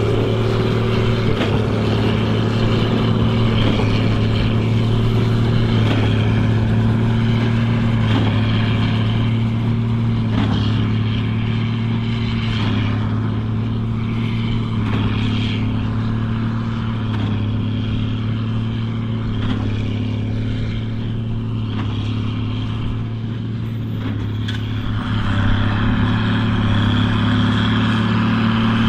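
Case 2294 tractor's six-cylinder turbo diesel running steadily under load while pulling a Massey Ferguson 190 big baler, with a regular knock about every two seconds from the baler. Near the end the engine note grows louder.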